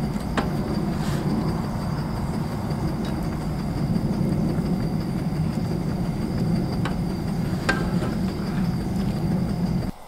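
Wood campfire burning: a steady low rumble with a few sharp crackles, breaking off suddenly near the end.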